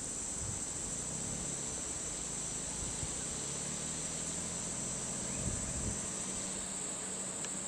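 Steady, high-pitched drone of insects, with a faint low engine hum beneath it.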